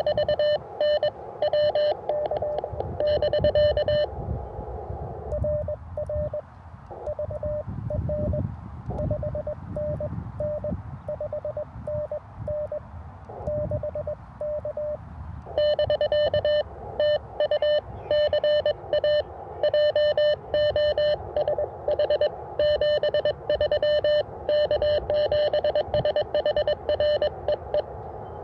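Morse code (CW) from the speaker of an Icom HF transceiver tuned to the 20-metre CW segment: a single steady tone, switched rapidly on and off, over band static. The keying is strong for the first few seconds, weaker and buried in static from about four seconds in, and strong again from about fifteen seconds in.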